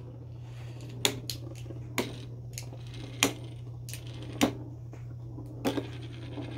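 Two Beyblade spinning tops clacking against each other in a plastic sled bowl: about nine sharp hits at irregular spacing.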